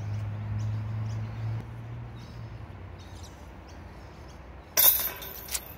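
A putted disc hits the chains of a disc golf basket about five seconds in: a sudden, brief jangle of metal chains, with a smaller clink just after as the putt drops in. Before it there is only a faint low hum that fades out.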